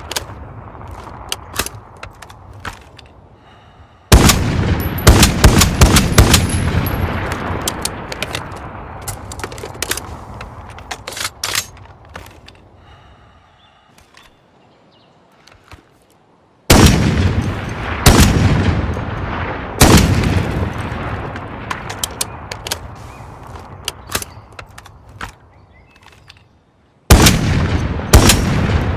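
Barrett M82A3 .50-calibre semi-automatic rifle firing heavy single shots, several close together, each followed by a long echo that slowly dies away. Small sharp clicks sound in the quieter gaps between shots.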